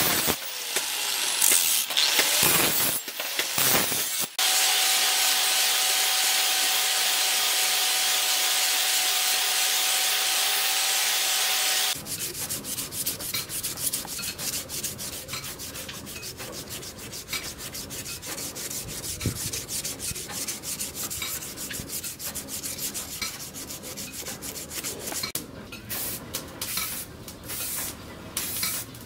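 Angle grinder grinding the steel of a leaf-spring cleaver blade with a hissing whine, in a few short passes and then one steady run that cuts off about twelve seconds in. After that, quick repeated strokes of sandpaper rubbing a wooden knife handle by hand.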